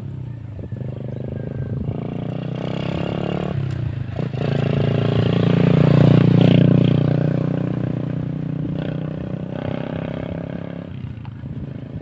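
A motor vehicle engine passing by: it grows louder to a peak about halfway through, then fades away.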